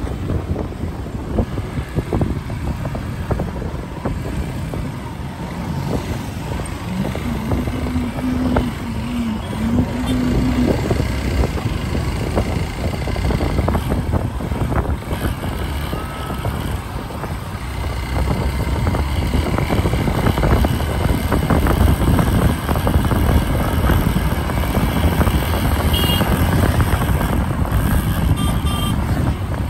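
Traffic and road noise from a moving vehicle, with wind rushing over the microphone. A low steady tone sounds for about three seconds about a quarter of the way in, and there are a few short high beeps near the end.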